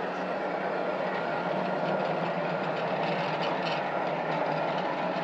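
Sawmill running steadily: a constant low hum under a broad rushing noise.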